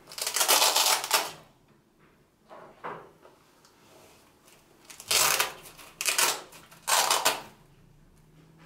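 Hook-and-loop (Velcro) strap and flaps on a nylon knife-roll case being pulled apart and pressed shut, several separate rasping tears with short pauses between them.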